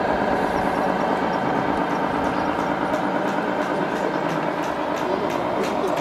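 Radio-controlled model Scania heavy-haul truck with a low-loader trailer driving slowly, giving a steady engine-like drone. From about five seconds in come light, regular clicks, about three a second.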